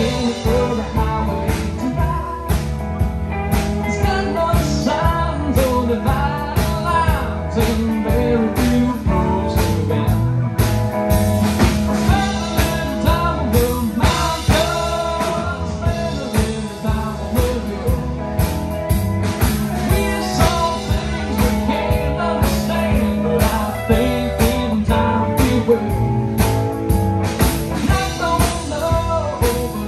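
Live band playing bluesy rock on amplified electric guitar, resonator guitar, electric bass and drum kit, with a steady drum beat.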